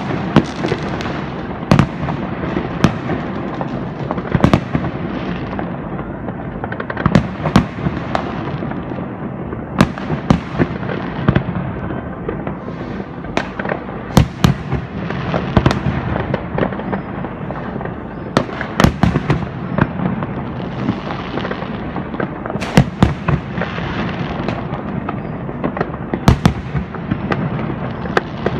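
New Year's Eve fireworks: a constant dense background of many rockets and firecrackers going off, with louder sharp bangs standing out at irregular moments, about one every second or two.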